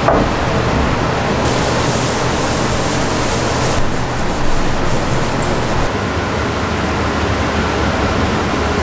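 An electric circulator fan running, a steady rushing of air that cuts off suddenly at the end.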